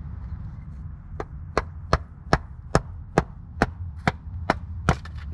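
A knife being hammered through a small-diameter log to split it for firewood: about ten sharp wooden knocks, evenly spaced at roughly two and a half a second, starting about a second in.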